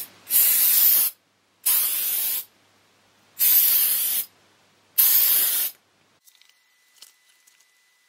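Aerosol CA glue accelerator (kicker) sprayed in four short hissing bursts, each under a second, onto CA glue that has wicked into EPP foam around the wing spars, to cure it. Near the end a few faint clicks.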